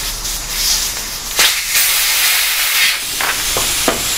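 Air hissing out of a bicycle inner tube through its open valve as the valve core is unscrewed: the tube is being let down. There are a few light clicks along the way.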